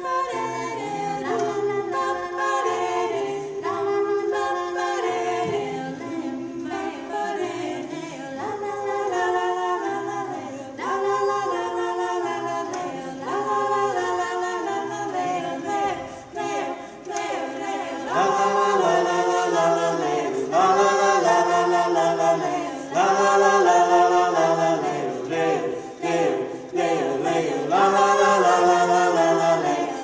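Four voices, men's and women's, singing unaccompanied and without words in four-part harmony, holding chords that change every second or so. The singing grows louder about two-thirds of the way through.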